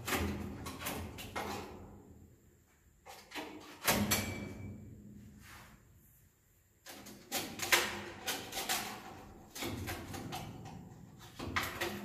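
Irregular scraping and knocking on wood, in clusters with two short quiet pauses: swiftlet nests being scraped and pried off wooden ceiling beams.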